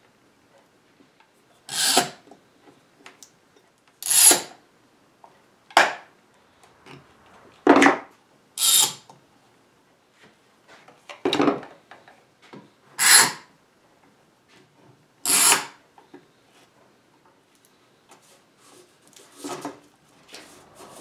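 F-style bar clamps being set one after another on a wooden clamping board: about nine short scrapes, roughly one every two seconds, as each clamp's sliding jaw is run along its steel bar and snugged onto the wood.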